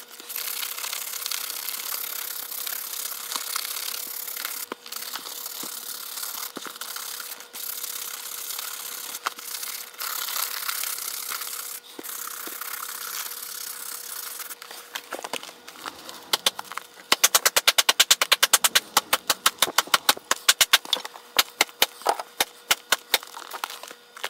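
A brush rubbing over the leather of a Wilson A2K baseball glove in long strokes with short pauses. About two-thirds of the way in this gives way to a fast run of sharp taps on the glove, which slows to scattered taps near the end.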